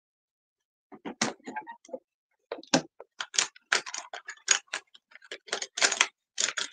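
Quick, irregular clicks and light clatter of small plastic makeup items, eyeliner pencils and caps, being picked through and handled, starting about a second in.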